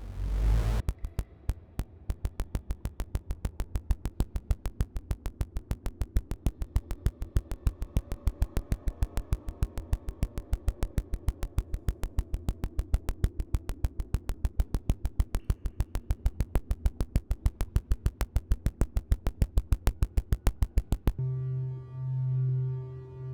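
Synthesized sonification of the pulsar PSR B1509-58: a long, even train of sharp clicks, about five a second, over a low drone. About 21 seconds in it cuts off and is replaced by a pulsing hum of several steady tones, the sonification of the star WR 104.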